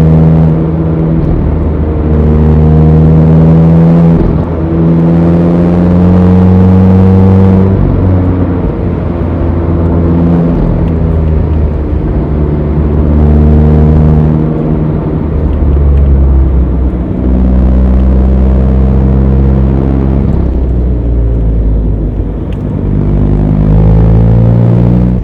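Mazda ND Roadster's four-cylinder engine pulling up a steep hill road under load, its pitch holding or creeping up and then stepping to a new level every few seconds as the driver changes gear, with short dips in loudness at each shift.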